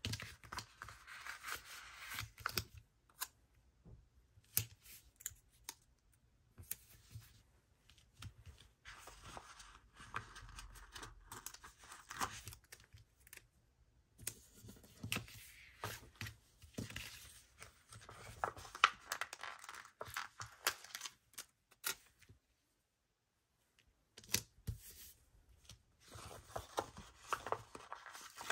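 Paper stickers being peeled off their backing sheet and pressed onto a planner page: short crackly peels and paper rustling in several bursts, with light taps, broken by a few brief pauses, the longest about two seconds and three-quarters of the way through.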